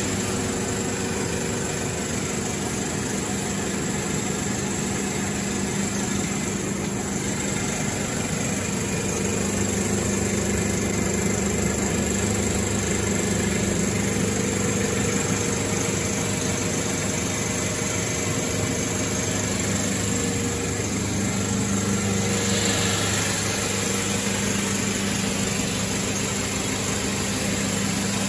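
Timesaver single-belt wide belt sander with a 20 hp motor running steadily, giving an even, unbroken machine hum with a low drone.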